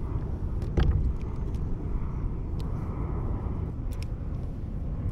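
Wind buffeting the microphone as a steady low rumble, with a few light clicks from a spinning rod and reel being handled.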